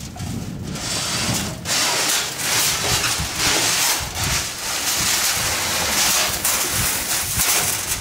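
Dry soybean seed rustling and rattling as hands sweep through it, spreading and levelling the seed in a grain drill's steel seed box, in a run of irregular strokes.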